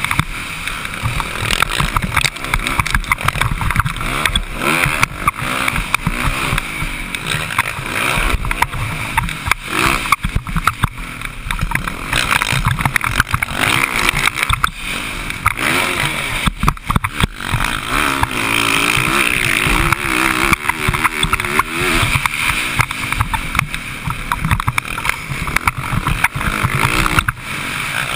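Dirt bike engine revving up and down as the motocross bike is ridden hard, heard from an on-bike camera with heavy wind buffeting on the microphone.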